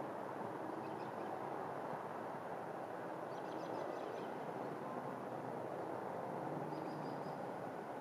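Steady hum of distant car traffic, with a few faint high chirps: a quick chatter about three and a half seconds in and a brief call near the end.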